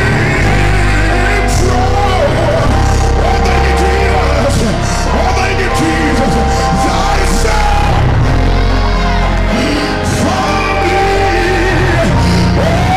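Live gospel music: a lead singer and choir singing and ad-libbing with shouts over a band with a heavy bass and cymbals.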